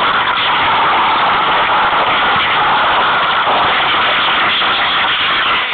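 Steady rush of wind over the microphone while riding an electric motorcycle at speed, with no engine note to be heard.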